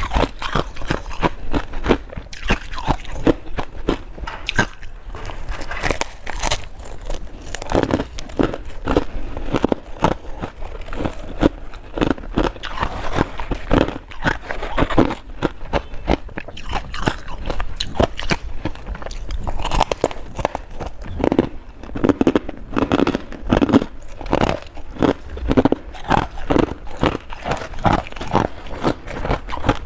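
Close-up crunching as a person bites and chews mouthfuls of crunchy ice frost, a rapid, irregular run of sharp crunches.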